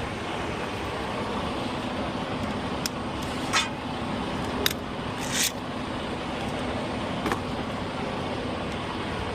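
Truck engine idling with a steady drone, with five short sharp knocks in the middle stretch.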